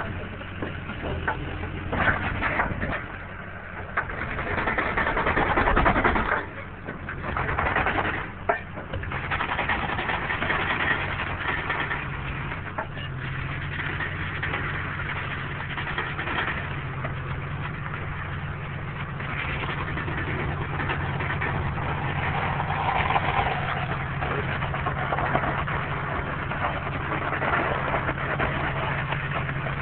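Heavy forestry machine's diesel engine running steadily, with louder stretches of rushing noise about four to eight seconds in.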